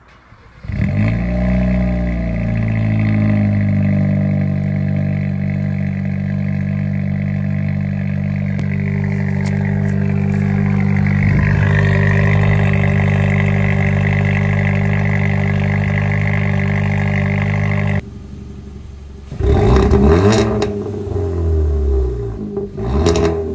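2023 Kia Forte GT's turbocharged 1.6-litre four-cylinder, breathing through an X-Force mid pipe and stock muffler, cold-starting: it fires under a second in, flares briefly and settles into a steady high idle. Near the end the idle drops suddenly, then the engine is blipped a few times, with pops and crackles from the exhaust as the revs fall.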